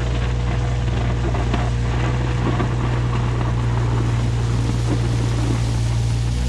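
John Deere 35G mini excavator's diesel engine running steadily under work, with a constant low drone and a thin steady whine above it.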